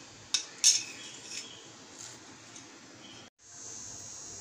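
A spoon clinking twice in quick succession, sharp and loud, followed by a few lighter taps. A brief dropout near the end is followed by a steady hiss.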